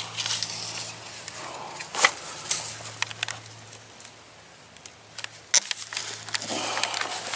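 Wire coil being handled on grass: rustling with scattered sharp metallic clicks, two or three clusters of them, over a faint steady low hum.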